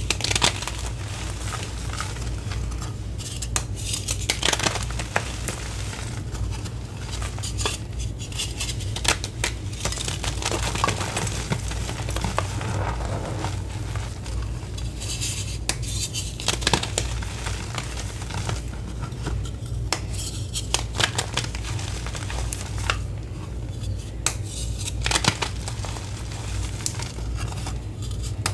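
Reformed gym chalk blocks (gym chalk, cornstarch, acetone and citric acid) snapped and crushed by hand into a bed of loose powder: an irregular string of crisp cracks and crunches with softer crumbling between them, over a steady low hum.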